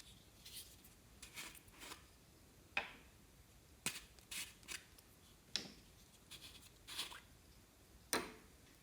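Clear slime being handled and mixed by hand: a series of short, sharp sticky pops and crackles, several of them louder snaps.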